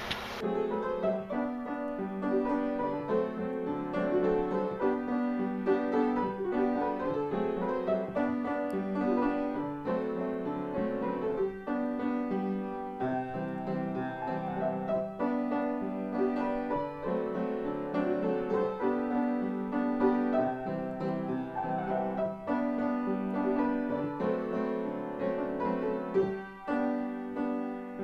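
Piano music, a steady run of notes.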